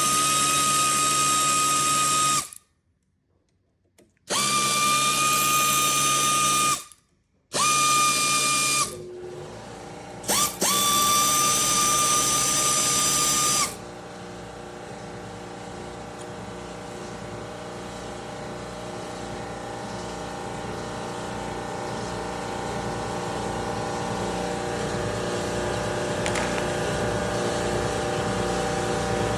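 Handheld power drill/driver spinning in four bursts of two to three seconds each, a steady whine, as bolts are run out of the engine. After the last burst, about halfway in, a quieter steady machine hum takes over and slowly grows louder.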